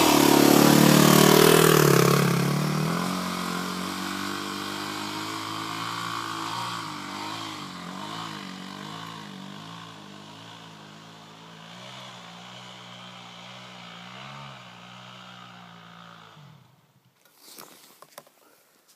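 Yamaha WR250R's 250 cc single-cylinder four-stroke engine as the motorcycle rides away. Its note rises and falls with the throttle and fades steadily into the distance, dying out near the end.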